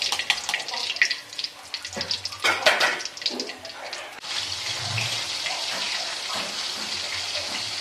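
Hot cooking oil crackling and sizzling in an aluminium wok, with scattered sharp pops and clicks as fried battered chicken is lifted out on a wire spider strainer. About four seconds in, it gives way to a steady, even hiss.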